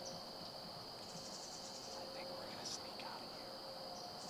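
Crickets and other insects calling in a steady evening chorus: a continuous high-pitched trill, joined about a second in, and again near the end, by a higher pulsing trill. A faint short tick comes near the middle.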